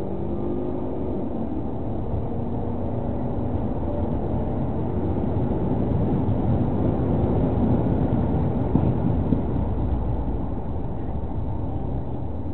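A police patrol car's engine and road noise, heard from inside the moving car as a steady rumble. It grows louder towards about eight or nine seconds in as the car speeds up, then eases off.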